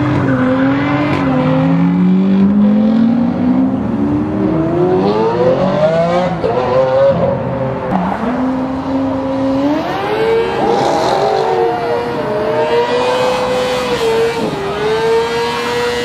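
Sports car engines accelerating hard, pitch climbing through the gears over the first several seconds. From about ten seconds in, an engine is held at high revs with spinning, squealing tyres as a car does a burnout.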